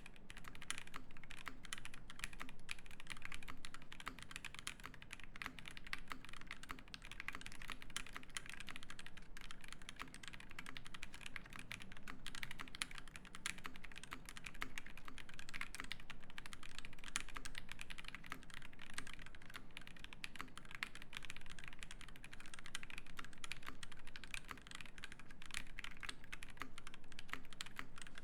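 Fast, continuous typing on an Ikki68 Aurora mechanical keyboard fitted with lubed, filmed Alpaca linear switches on an aluminium plate and GMK keycaps: a dense, even run of key presses, several a second, with no real pauses.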